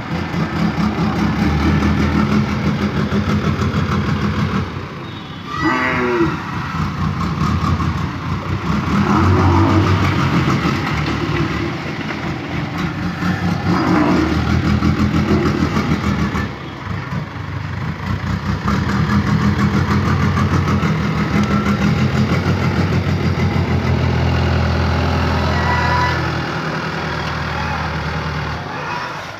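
Bulldozer's diesel engine running, its revs rising and falling as it works, with a short wavering call over it about six seconds in.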